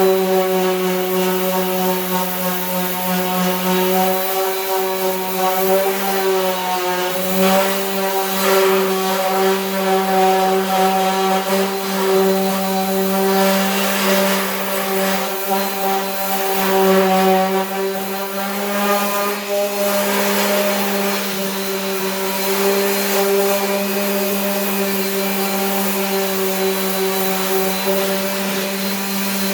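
Power sander running steadily while sanding cured body filler on a 1978 Ford F100 fender. A constant motor hum carries a scratchy rasp that swells and fades as the sander is moved over the panel.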